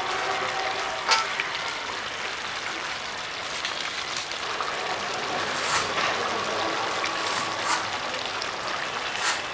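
Prawn curry bubbling and sizzling in an iron karahi over a wood fire: a steady hiss with a few sharp pops scattered through it. Near the end, water is poured in from a mug.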